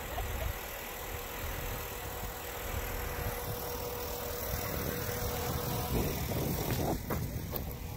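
Dodge Durango SUV's engine running low and steady as the truck tries to back off a rocky dirt slope, with a faint steady whine that stops about six seconds in. A few knocks and rattles from the truck near the end.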